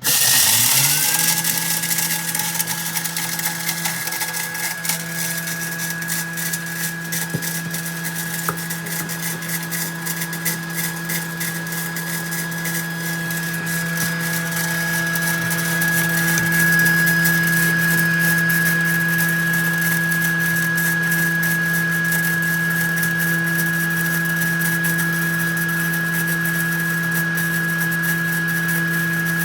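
Thermomix motor spinning up within the first second, then running at high speed with a steady whine while its blade mills whole peppercorns. Dense rapid rattling and clicking of peppercorns against the blade and bowl.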